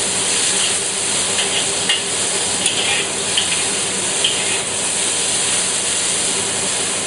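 Sliced red onion sizzling in hot oil in a wok over high heat, a steady frying hiss. A metal spatula stirring the onion scrapes and taps against the wok now and then.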